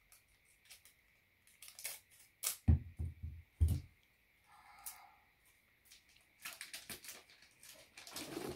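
Scissors snipping a strip of sticky tape from the roll, then two dull thumps as they are set down, followed by wrapping paper crinkling and rustling as the tape is pressed onto a wrapped gift.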